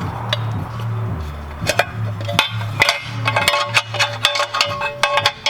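Metal shifter linkage parts clicking and clinking as they are handled and pulled from the housing, with a dense run of sharp clicks over the last few seconds. Background music with a steady bass line plays throughout.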